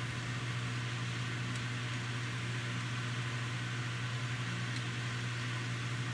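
Steak sizzling steadily in a frying pan on a gas burner, over a steady low hum.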